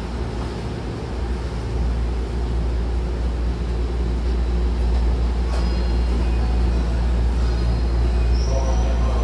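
Steady low hum of a stopped electric train at the platform with its doors open, getting louder about two seconds in. A short metallic clank comes about five and a half seconds in, and faint high tones set in near the end.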